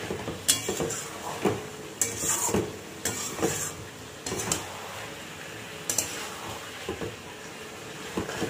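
Spatula scraping and knocking against a metal pot as chicken curry is stirred and fried down over a high flame, in irregular strokes about once a second, with a low sizzle underneath.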